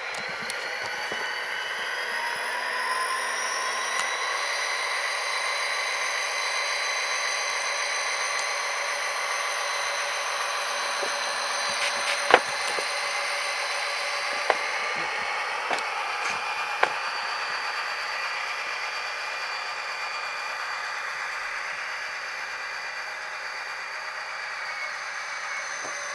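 Tsunami sound decoders in two HO-scale Atlas GP40 model diesels playing the sound of an EMD turbocharged diesel engine through small onboard speakers: thin, with no bass, and the engine pitch rises over the first few seconds and eases back around the middle. A few sharp clicks come near the middle.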